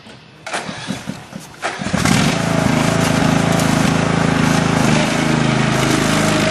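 Small petrol engine being started: a couple of short sputters, then it catches about two seconds in and runs steadily and loudly.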